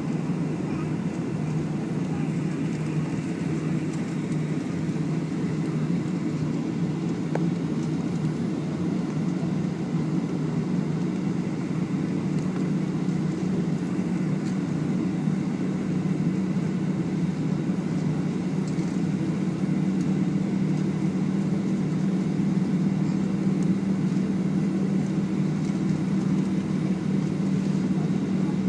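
Steady low hum inside the passenger cabin of a Boeing 757-200 airliner, growing a little stronger in the second half.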